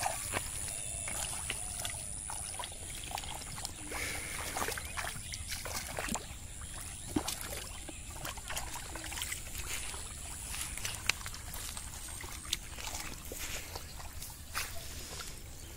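Irregular small splashes, drips and wet squelches of hands and bare feet working through shallow muddy water and mud while groping for fish by hand.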